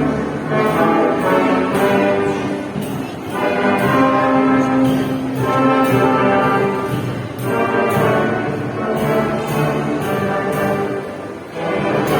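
Youth orchestra playing live, brass to the fore in sustained chords that swell and ease in phrases a few seconds long.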